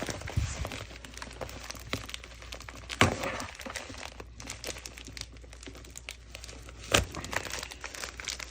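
A package being worked at with a toothbrush: a run of scraping, crinkling and tearing of the packaging, with two sharper cracks, one about three seconds in and one near the end.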